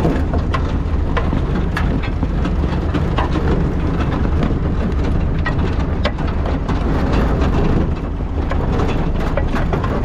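A Massey Ferguson 711 potato harvester running, with its webs and picking table rattling and clicking as soil, clods and stones pass over them. A steady low engine sound runs underneath from the Massey Ferguson 35 tractor pulling it.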